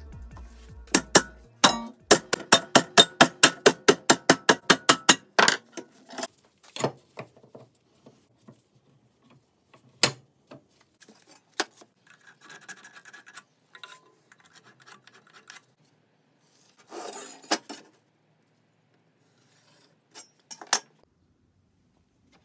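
Steel being worked at a bench vise: a fast, even run of sharp metallic strokes, about five a second, for around three seconds. Then scattered knocks, clinks and handling of steel parts.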